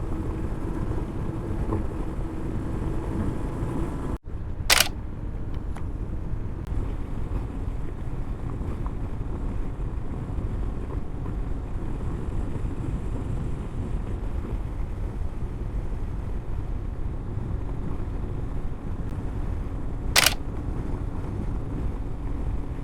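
Honda CB500X parallel-twin motorcycle riding along: steady engine, wind and road noise from the on-bike camera. A sharp click about five seconds in and another near the end stand out over it.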